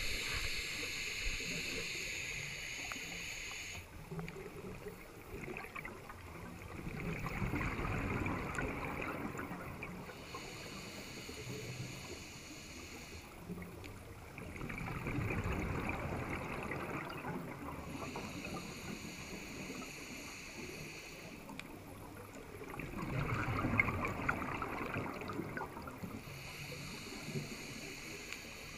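Scuba diver breathing through a regulator, heard underwater: a hissing inhale alternating with a louder bubbling exhale, about every eight seconds, with three exhales.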